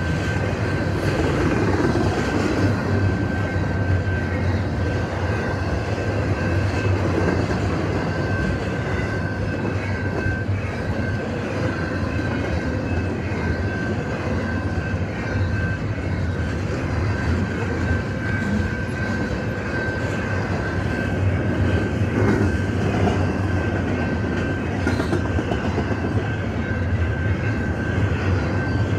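Freight cars of a Canadian Pacific train rolling past fast: a steady rumble and clatter of steel wheels on the rails, with a thin, steady high whine over it.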